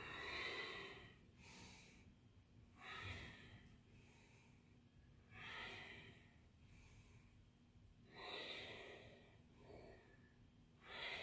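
A woman breathing faintly and audibly while exercising. Five breaths come in a regular rhythm, about one every two and a half to three seconds, each lasting about a second.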